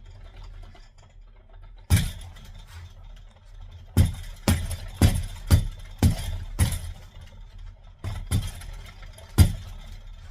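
Boxing gloves punching the ball of a reflex bar: a series of sharp thuds, some in a quick run of about two a second, others spaced out.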